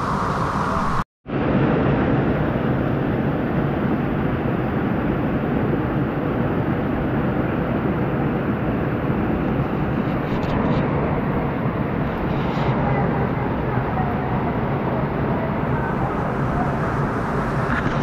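Steady roar of rushing water from a river waterfall. It cuts out for a split second about a second in, then runs on evenly.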